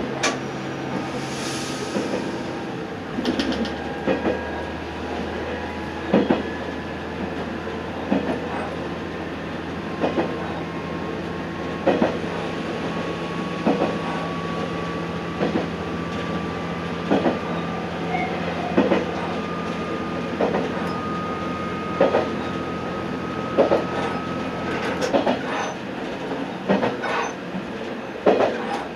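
Amagi Railway diesel railcar running along the line, its wheels clicking over rail joints about every two seconds, coming slightly closer together. Under the clicks are the steady drone of the diesel engine and a faint whine that slowly rises in pitch.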